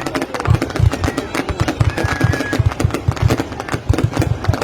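Fireworks going off in a rapid, continuous string of sharp bangs and crackles with deep thumps underneath.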